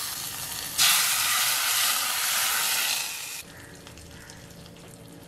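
Hot ghee tempering of mustard seeds, cumin, red chilies and curry leaves sizzling as it is poured into a pot of rasam. The sizzle jumps louder about a second in, then falls to a fainter hiss about three and a half seconds in.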